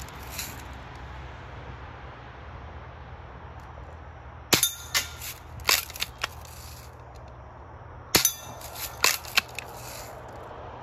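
Spring-powered Daisy BB gun firing at steel targets: two clusters of sharp cracks with metallic pings and clanks, about four and a half and eight seconds in, as BBs strike and ring the steel spinners.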